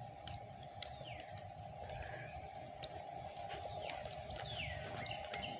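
Birds calling outdoors: two descending whistled calls and a few short chirps, over a steady low hum.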